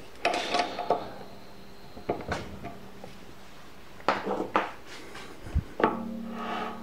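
Metal clinks and knocks as the tailstock and drill chuck of a metal lathe are handled and slid along the bed. The sound comes in four short clusters of clatter about a second or two apart.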